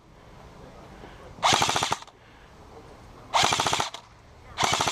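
Airsoft gun firing three short full-auto bursts of rapid clicking shots, each about half a second long, as suppressing fire to pin down an opponent.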